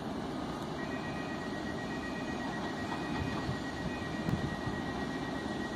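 Newag Griffin electric locomotive pulling out with its train: a steady low rumble, with a thin high steady whine that comes in about a second in and holds.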